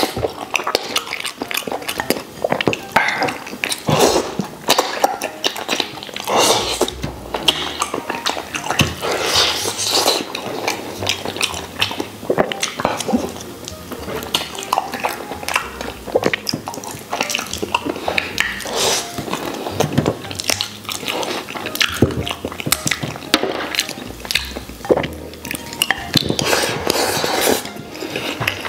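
Close-up eating sounds of braised pig tails with rice: wet chewing, lip-smacking and sucking on the sticky, gelatinous skin and small bones, with chopsticks tapping the porcelain bowl now and then.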